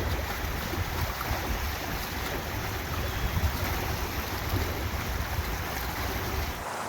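Wind buffeting the microphone: a steady rush with a gusty low rumble, which cuts off abruptly near the end.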